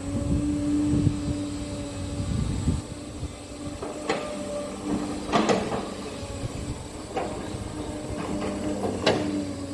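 Cat 320D hydraulic excavator working: the diesel engine runs with a steady whine over it. Low thuds come in the first few seconds, then four sharp metallic clanks spread through the rest.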